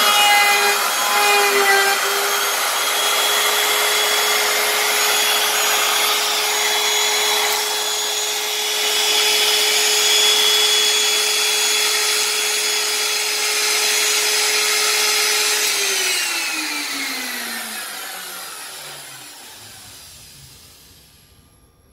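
Homemade CNC router's spindle running with a steady whine as its V-bit cuts lettering into a wooden plaque, with rasping cutting noise. About three-quarters of the way through, the spindle is switched off at the end of the carving job and its whine glides down as it spins to a stop.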